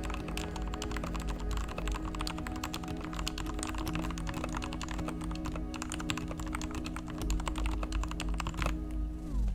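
Typing on a Royal Kludge RK61 61-key mechanical keyboard with freshly lubed switches: fast, continuous key clacks. Background music plays underneath and slides down in pitch near the end.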